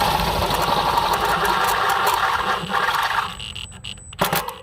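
Power drill with a 5/16-inch bit reaming out a hole in an RV water heater access door to fit a cam lock. It runs for about three seconds, then stops, with a couple of clicks near the end.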